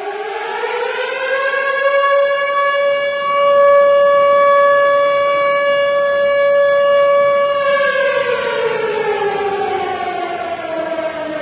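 Civil defense air-raid siren winding up to a steady wail, holding one pitch for several seconds, then sliding slowly down in pitch over the last few seconds.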